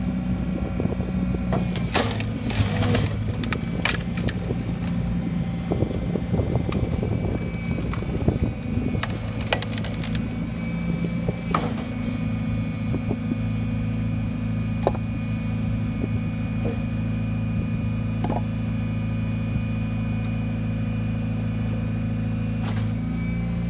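Truck-mounted hydraulic log splitter running, its engine and pump making a steady low drone while a log is forced onto the wedge and splits with cracking and splintering of wood, mostly in the first half. A few more sharp knocks come near the end as split pieces are handled.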